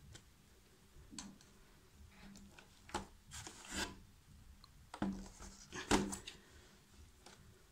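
Light handling sounds on a laptop's plastic case: scattered clicks, taps and rubbing, with a few sharper knocks near the middle.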